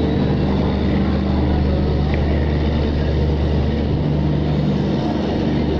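A passenger train rolling slowly along a platform, heard from an open coach door: a steady low hum over a continuous running rumble.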